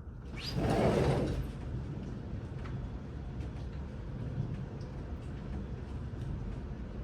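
Thunder from a nearby lightning strike: a sharp tearing crack about half a second in that slides down into a low rumble and fades within about a second, leaving a steady low rumbling background.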